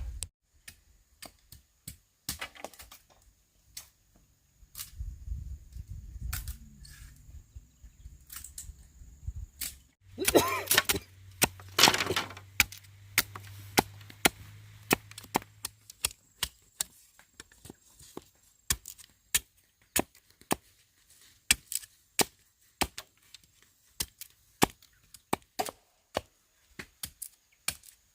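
Bamboo being chopped with a blade: sharp, hard chopping strikes, irregular at first and then settling into a steady run of about two a second. About ten seconds in there is a louder, longer stretch of cracking.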